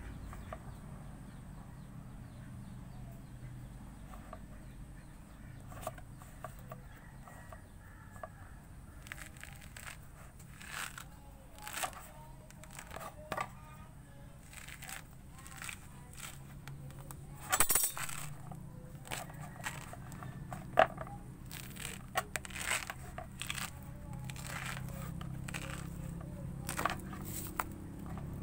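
Thick pomelo rind being pried and torn off the fruit by hand: irregular crackling snaps and rips, sparse at first and coming more often from about six seconds in, over a faint low hum.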